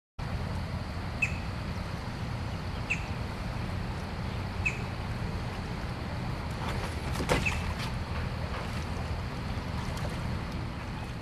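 Steady rushing noise of a stream's waterfall, heavy in the low end, with wind buffeting the microphone. A short high chirp repeats four times, spaced evenly, and a few knocks come about two thirds of the way in.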